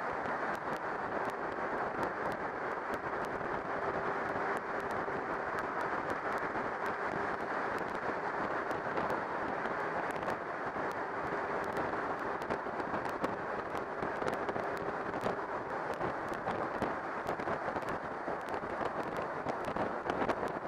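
Steady road noise of an open-top tour bus driving through a road tunnel, with frequent crackling pops throughout and a faint steady hum in the first part.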